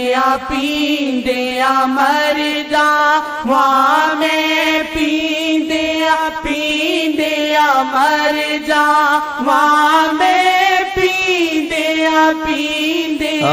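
A voice singing a naat, a devotional Punjabi poem, in a long, wavering, drawn-out melody with no clear words.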